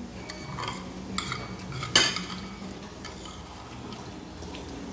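Metal spoon clinking and scraping against a bowl while eating, with one sharp clink about two seconds in, over a low steady hum.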